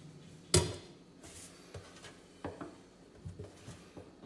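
A sharp metal clank about half a second in, as the chrome drain strainer meets the stainless steel sink while being set into the drain opening, followed by a few lighter knocks and rubs of handling.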